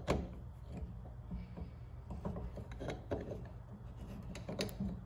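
Small metal tool-post parts being handled and fitted by hand: light rubbing with a few sharp clicks, two of them close together near the end, over a low steady hum.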